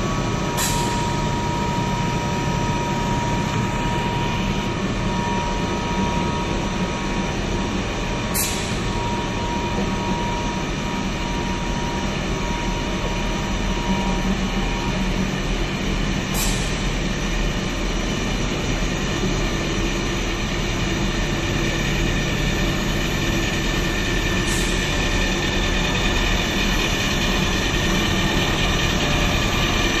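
Cable-factory machinery, a 1250 cantilever twisting (stranding) machine line, running with a steady, dense mechanical whir and several held tones. A higher tone fades out about halfway, and a sharp tick comes about every eight seconds.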